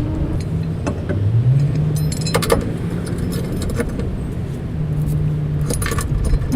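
Metal mounting hardware (bolts, washers and steel brackets) clinking and rattling in clusters about two seconds in and again near the end, over a steady low rumble.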